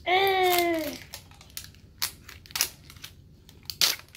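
A child's short wordless vocal sound, about a second long and dropping in pitch at the end, then crinkling and tearing of a surprise ball's wrapping layer as it is peeled off in a long strip, with sharp crackles about two, two and a half and four seconds in.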